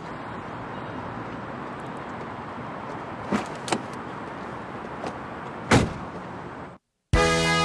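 Steady background noise with a few sharp knocks, the loudest near the end. It cuts to a brief total silence, then music begins just before the end.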